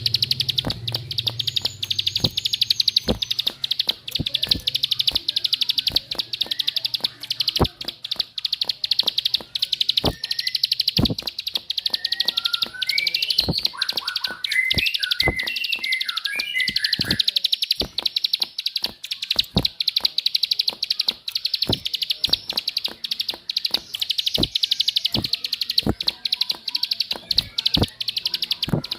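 Bird-lure 'klik klik' recording used to set bar-winged prinias (ciblek) singing: a fast, continuous high ticking chatter, cut through by sharp louder clicks about once or twice a second. A short run of bird chirps comes through about halfway.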